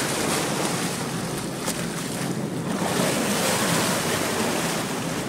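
Sea water churning and splashing beside a boat's hull, with wind buffeting the microphone and a low steady boat engine hum underneath.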